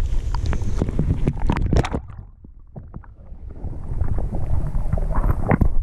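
Water sloshing around a camera held underwater, with muffled knocks and clicks of handling. About two seconds in it turns quieter and dull. Near the end the camera comes up out of the water and wind noise on the microphone takes over.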